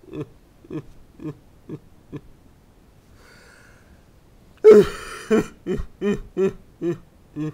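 A person's voice making short grunts, about two a second, for the toy bears as they scuffle, with a louder harsh cry about four and a half seconds in.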